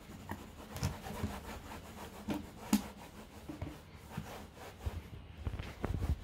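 Cloth rubbing across a wooden tabletop in irregular wiping strokes, with a few light knocks and taps; the sharpest tap comes a little under three seconds in.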